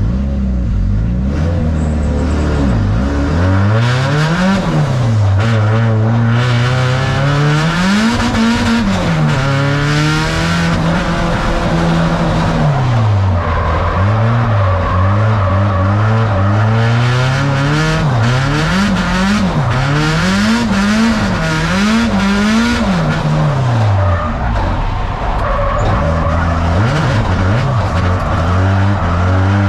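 Nissan 180SX drift car's engine revving up and down through a drift run, the pitch climbing and dropping again and again, with a quick string of blips about two-thirds of the way through. The tyres are skidding underneath.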